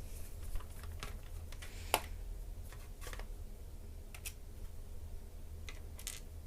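Small scattered clicks and taps of a screwdriver backing out the screws that hold a laptop keyboard, with the screws and the laptop's plastic case handled, one sharper click about two seconds in; a low steady hum underneath.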